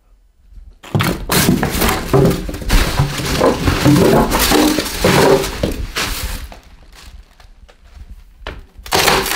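Polystyrene packing blocks and cardboard being handled and pulled about: dense crunching and squeaking starting about a second in and lasting about five seconds, then quieter, with a short burst of handling noise near the end.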